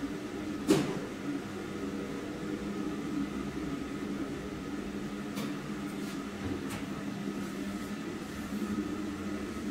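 Steady electrical hum of a high-frequency PVC welding machine running, with one sharp click about a second in and a few fainter clicks later on.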